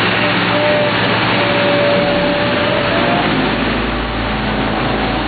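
Heavy asphalt paving machinery running steadily: the engines of the paver and feeding truck at work, with a brief whine near the middle and a deeper rumble building in the second half.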